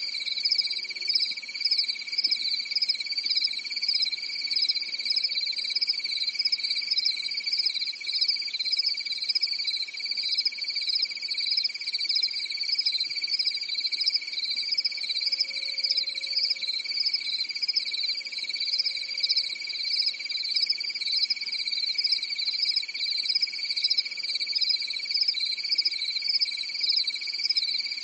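Chorus of crickets chirping without a break: a steady high trill with a faster pulsing chirp above it.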